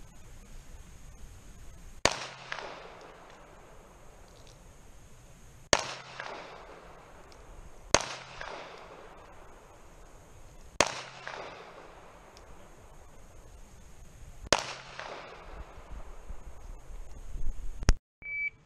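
Five single pistol shots, two to four seconds apart, each a sharp crack with a short echo trailing off.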